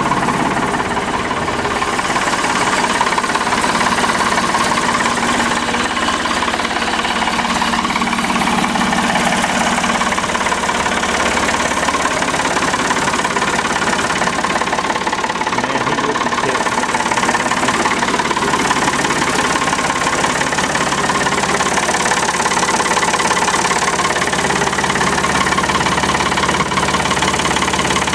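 Ford 555A backhoe's engine idling steadily, still warming up a minute or so after a cold start.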